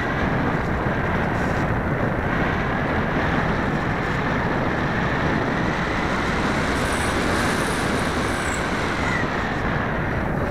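Airflow rushing over the microphone of a keychain camera on a twin-motor electric RC plane in flight, with the thin whine of its electric motors under it. The rush stays steady.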